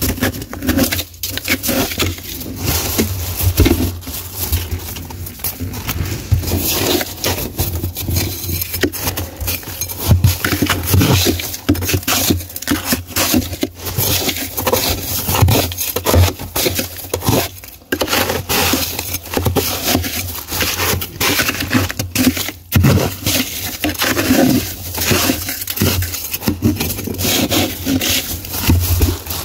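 Thick powdery frost being scraped and broken off the inside walls of a deep freezer, a continuous crunching and scraping with many sharp cracks, the frost handled with a gloved hand and, near the end, a metal spoon.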